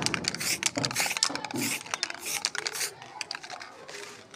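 Sharp, irregular clicks and short hissy rattles from a spray paint can and its cap being handled, lasting about three seconds before it goes quieter.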